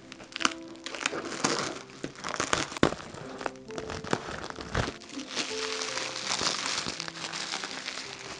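Bubble wrap and plastic stretch wrap crinkling and rustling as hands pull and work it off a sewing machine, loudest in the first half and again near the end, over soft background music of held notes.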